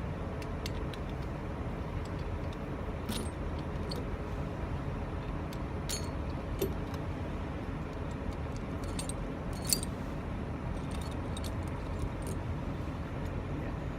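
Scattered metallic clinks and rattles of a truck tire chain and its cam key as the chain's tensioning cams are undone, the sharpest clink a little under ten seconds in. A steady low engine rumble runs underneath.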